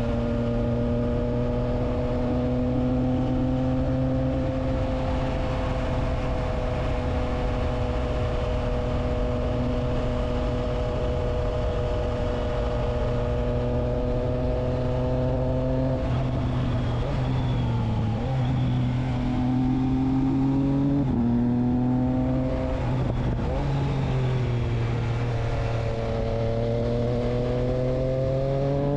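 Triumph Trident 660's inline three-cylinder engine through a Spark exhaust with the dB killer fitted, running at steady revs for about sixteen seconds. The revs then fall, climb and drop sharply about twenty-one seconds in, as at a gear change, and rise again near the end.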